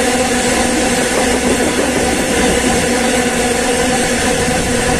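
Loaded iron-ore train's wagons rolling past close by at speed: a loud, steady rumble of steel wheels on rail with a steady hum running through it.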